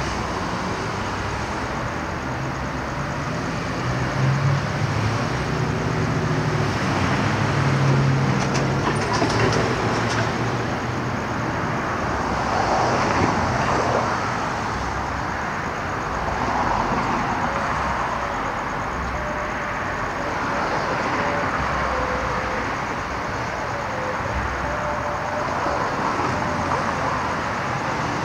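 Steady road traffic noise from passing cars, with one vehicle's low engine hum swelling and then fading a few seconds in.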